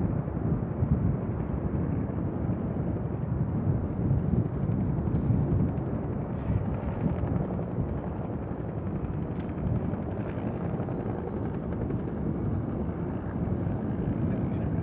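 Steady low rumble of C-130J Super Hercules turboprop engines as the aircraft taxi, heard from a distance and mixed with wind buffeting the microphone.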